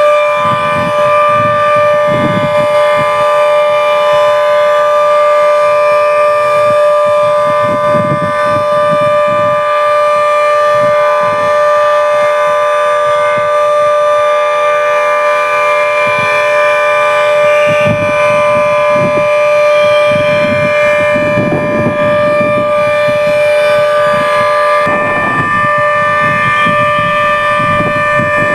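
Civil defence siren sounding one steady, held, loud tone with no rise or fall, as a practice drill rather than a real alert. Irregular low gusts of noise run underneath.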